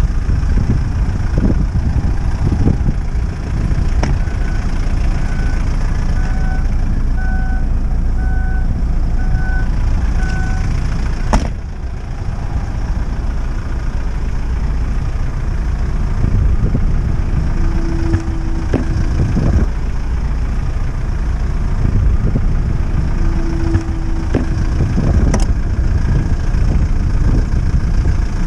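Steady low rumble of vehicle noise, with a run of about seven short, evenly spaced beeps, about one a second, a few seconds in.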